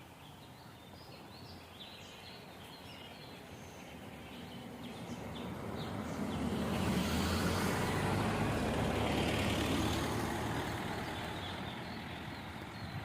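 A motor vehicle passes by, its rumble swelling over several seconds and then fading away, while small birds chirp in the background.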